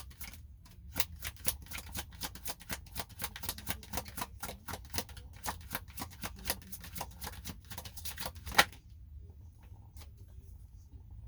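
A deck of oracle cards being shuffled by hand: a rapid, dense run of card clicks that stops about eight and a half seconds in with one sharp snap, followed by faint quiet handling.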